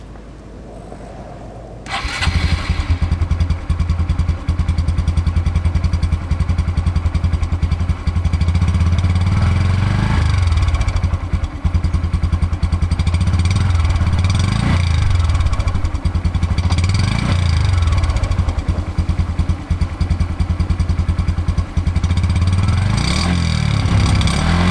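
Cold start of a 2019 Honda Super Cub C125's 125 cc air-cooled single-cylinder four-stroke engine. The electric starter cranks briefly and the engine catches about two seconds in, then settles into a steady idle. It is blipped a few times, its pitch briefly rising and falling.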